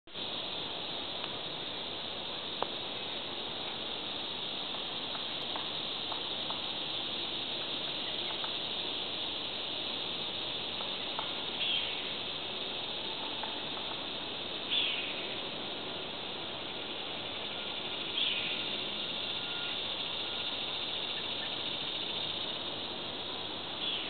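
Steady high insect chorus in summer woodland. A bird gives a short falling call four times, a few seconds apart, in the second half, with a few faint ticks earlier on.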